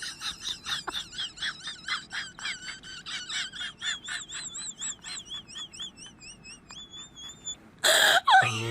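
A small bird chirping rapidly, then warbling in high, wavering trills that fade out; near the end a loud, sudden burst of noise with a falling sweep cuts in.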